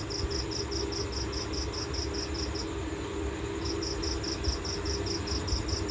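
An insect chirping in a steady, even pulse of about eight chirps a second, which breaks off for about a second midway and then resumes, over a steady low hum.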